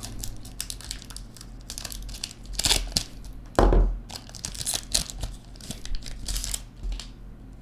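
Trading card pack wrapper crinkling and tearing as the pack is opened and handled, in irregular rustles, with a louder thump about three and a half seconds in.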